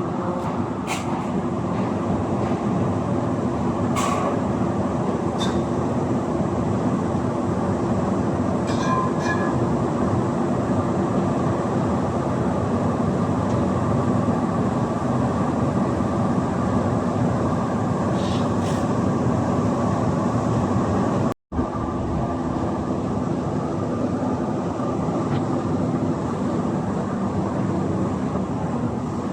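Heavy industrial plant machinery running steadily with a constant drone and hum, a few faint clicks over it, and a brief dropout about two-thirds of the way through.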